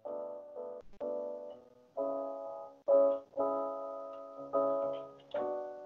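Electronic keyboard playing a slow series of chords, each struck and left to fade, with short breaks between them.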